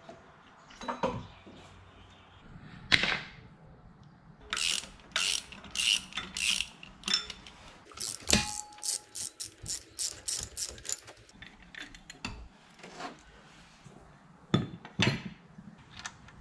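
Hand socket ratchet clicking in short runs, about three clicks a second at its steadiest, as bolts on the engine's belt-drive pulleys are worked, with a few sharp metal knocks of tools and parts.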